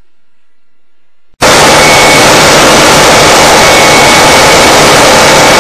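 A very loud, steady, distorted rushing noise cuts in suddenly about a second and a half in and holds level, with a faint thin high whine running through it.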